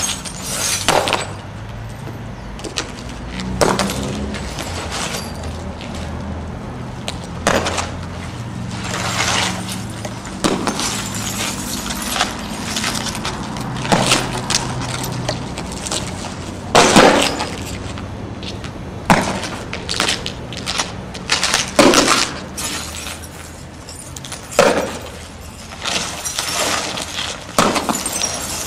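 Laminated car windshields lying on the ground being struck and crushed with a long-handled tool. Repeated, irregular crunching cracks of glass come every one to three seconds.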